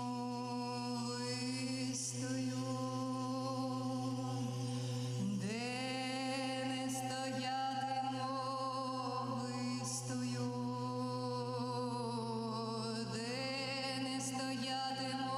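Wordless singing in long held notes with vibrato, sliding up into a new note about five seconds in and again near the end, over a steady low drone. A few brief shimmers of metal tube chimes ring out above it.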